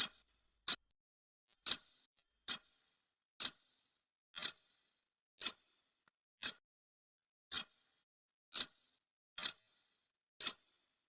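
Clock ticking sound effect counting off the seconds of a countdown timer, about one sharp tick a second. A high ringing tone fades out during the first second, and two short high tones sound just before the second and third ticks.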